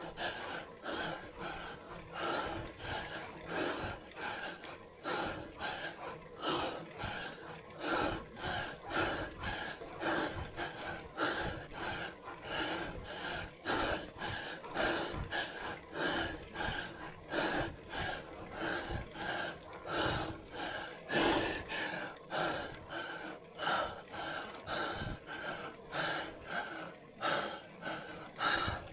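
Cyclist breathing hard in quick, even gasps from the effort of a steep uphill climb.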